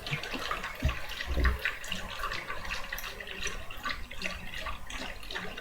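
A person hiccuping: two short low jolts about one second and a second and a half in, the second the stronger, over a crackly, clicky background.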